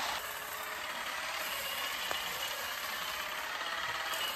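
Battery-powered electric olive harvester running steadily in an olive tree, giving a continuous mechanical rattling buzz as its combs shake the branches.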